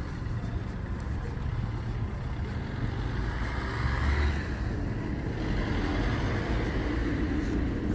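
Road traffic noise: a car passing, swelling to its loudest about four seconds in, over a steady traffic hum.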